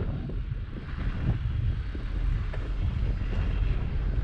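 Wind buffeting the microphone of a bicycle-mounted GoPro while riding, a steady low rumble, with the hiss of bicycle tyres rolling over packed snow.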